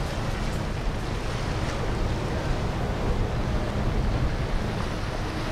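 Wind rumbling on the microphone over a steady wash of water and boat noise on the river.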